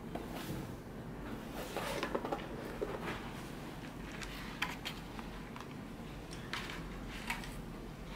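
Plastic lash display trays and a paper presentation box being handled: scattered rustles with light clicks and taps, over a steady low hum.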